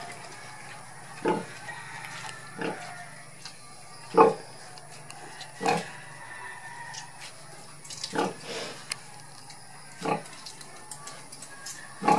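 Sow grunting while nursing her piglets standing up: about seven short low grunts, one every one and a half to two seconds, the rhythmic nursing grunts of a sow at feeding.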